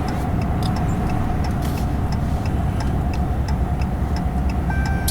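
Steady road and engine rumble heard from inside a moving vehicle, with a faint, regular ticking over it.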